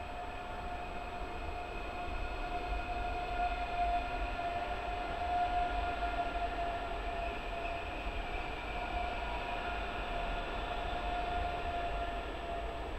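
ICE 3 high-speed electric train passing slowly alongside the platform, a steady electric whine of several pitches over a low rolling rumble.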